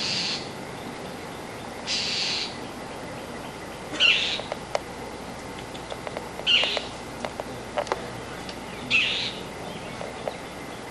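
A bird calling outdoors: five short, high calls about two seconds apart, with scattered light clicks between them.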